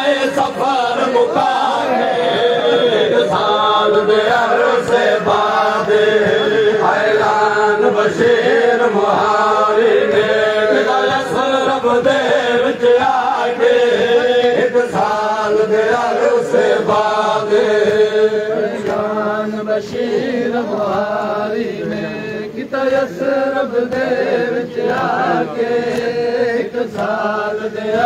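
Men's voices chanting a noha, a Shia mourning lament, together as a crowd, with the slaps of hands beating on chests (matam) sounding through the chant.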